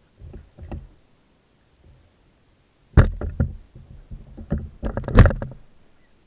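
An oar being shipped in an inflatable boat: a couple of faint knocks, then a sharp knock about three seconds in and a run of clunks and knocks against the oarlock and tube, the loudest near the end.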